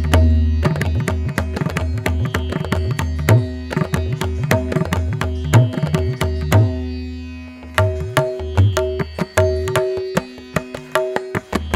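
Background music: rapid hand-drum strokes over a sustained low drone and held tones, dropping away briefly about seven seconds in before the drumming resumes.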